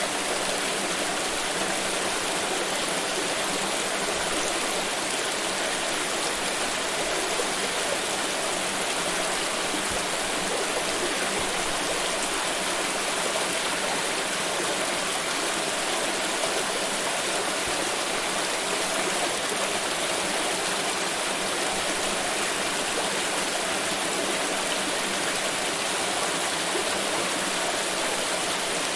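Water pouring steadily, an even, unbroken rush with no pauses or changes.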